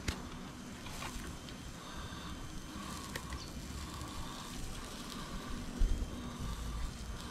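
Metal barbecue tongs clicking against the grill grate and meat as the goat pieces are turned, over a faint sizzle from the grill. Wind buffets the microphone about six seconds in.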